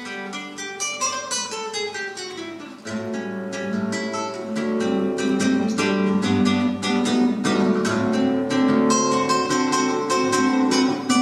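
Solo classical nylon-string guitar played fingerstyle: a quieter run of notes falling in pitch, then from about three seconds in a louder, brisk passage of plucked notes.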